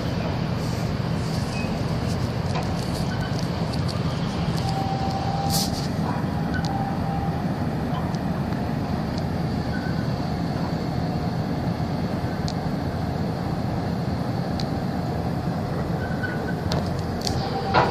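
Steady low diesel rumble of ships' engines under way in a harbour channel, over a haze of wind and water noise. A short knock comes near the end.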